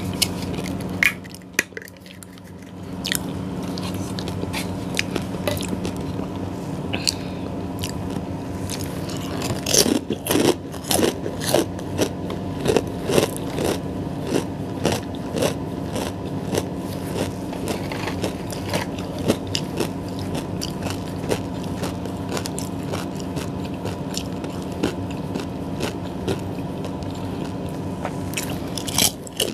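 Close-miked eating: bites and crunchy chewing of a crisp fried snack, with many short crackling crunches that get louder and more frequent about a third of the way in. A steady low hum runs underneath.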